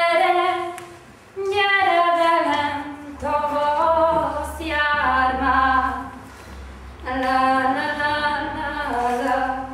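A woman singing unaccompanied, in a series of long held phrases with short breaks between them.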